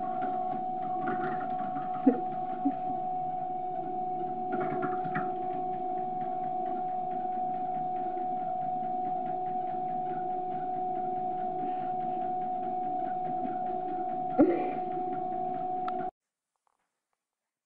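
Electric treadmill motor running with a steady whine, a few brief knocks over it. The sound cuts off suddenly about sixteen seconds in.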